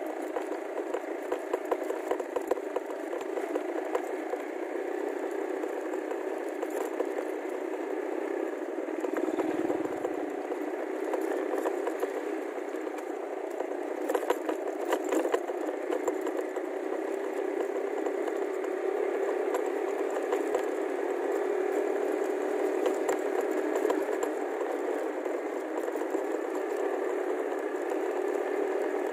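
Motorcycle tricycle's engine running steadily on the move, with the body and sidecar rattling and clattering over a rough dirt track. One low thump about ten seconds in.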